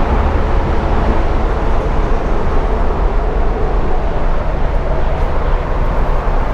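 Steady road traffic noise from a major highway close by: the continuous din of many cars passing, with no single vehicle standing out.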